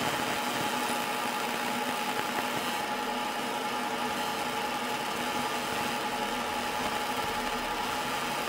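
EM Smart Basic 1 20 W fibre laser engraver running while it engraves lettering into a metal lathe change gear: a steady mechanical hum with several constant tones over a light hiss.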